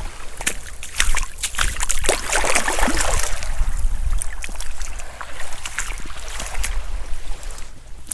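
Wind rumbling on the microphone over shallow seawater lapping at the tide's edge, with scattered crackles and rustles throughout; the water noise swells a couple of seconds in.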